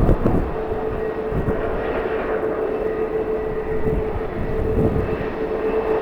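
Jet airliner engines running with a steady whine, over a low rumble of wind on the microphone.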